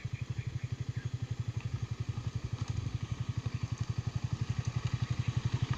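Yamaha R15 V3's single-cylinder engine running at a steady low speed, a fast even pulse with no revving.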